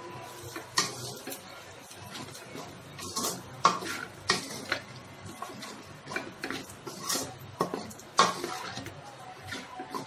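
Wooden spatula stirring cooked rice in a metal pan, scraping and knocking against the pan in a string of irregular strokes.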